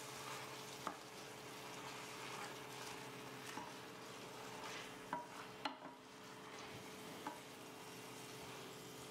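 A wooden spoon stirs spinach, chickpeas and tomatoes in a stainless steel pan while the sauce sizzles faintly, wilting the spinach. The spoon knocks lightly against the pan several times, over a steady hum.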